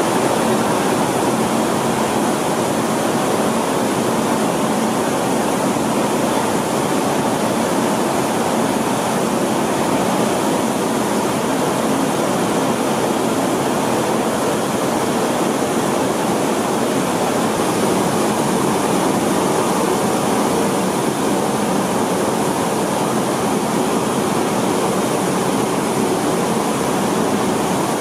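Rice mill machinery running steadily: a loud, even din with a faint hum in it, unbroken throughout.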